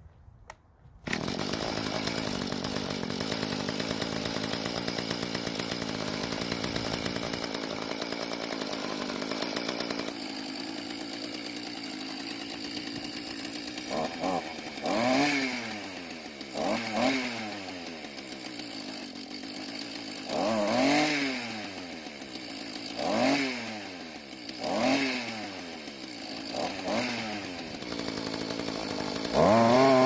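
Mantis tiller's small engine running steadily, then revved up and down with the throttle trigger again and again, and held at high speed near the end as the tines spin. The low-speed L mixture screw has just been turned out half a turn for more fuel, and the engine now takes throttle without dying.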